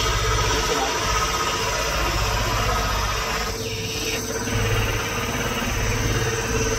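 Engine and hydraulics of a large log splitter running steadily as the machine feeds a big log toward its splitting wedge: an even mechanical drone with a held mid-pitched tone.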